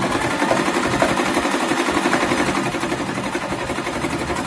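Singer Simple 3232 portable electric sewing machine running steadily, needle and feed going in a fast even rhythm as it sews a decorative pattern stitch.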